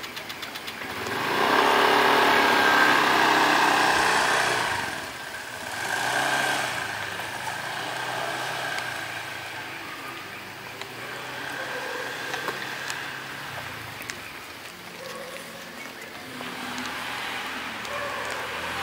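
A motor vehicle's engine going by, loudest from about one to five seconds in, then a fainter engine sound that carries on, rising and falling.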